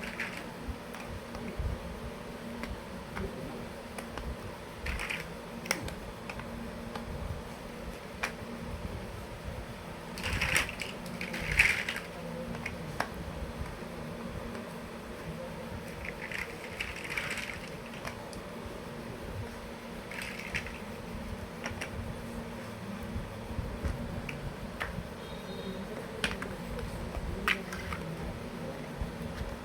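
Small plastic building blocks clicking as they are handled and pressed together, in scattered light taps with a few short louder rattles near the middle, over a steady low hum.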